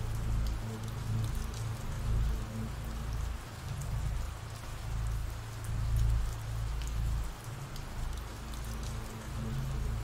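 Ambient rain sound effect: steady rainfall with scattered drips and a low rumble underneath that swells and fades.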